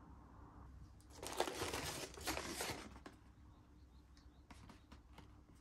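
Packaging rustling and crinkling for about two seconds as products are picked out of an open cardboard shipping box, followed by a few faint light clicks.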